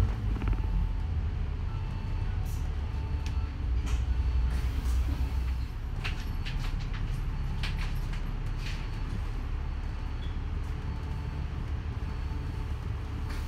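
Cabin noise inside a moving bus: a steady low engine and drivetrain rumble over road noise, with scattered rattles and knocks from the body and fittings. The rumble eases a little about halfway through. A faint short beep repeats at a steady pace in stretches.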